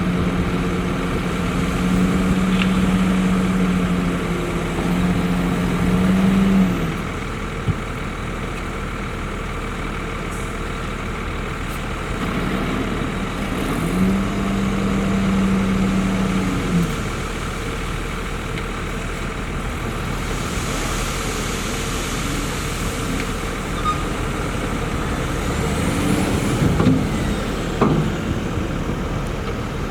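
Heavy diesel earthmoving machinery running steadily. Twice the engine note rises and grows louder as it works under load: from the start to about 7 seconds in, and again for a few seconds around the middle. A few short knocks come near the end.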